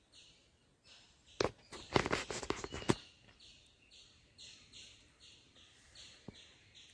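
A metal spoon stirring raw beef pieces in a steel pot, clinking and scraping against the pot from about one and a half to three seconds in. Under it, a high chirping repeats about three times a second.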